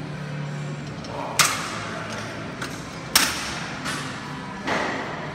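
Gym weights clanking: three sharp, echoing clanks about a second and a half apart, over a steady low hum.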